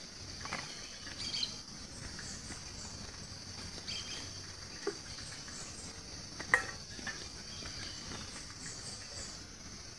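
Forest ambience: a steady high-pitched insect drone, with a few short chirps, the loudest about six and a half seconds in.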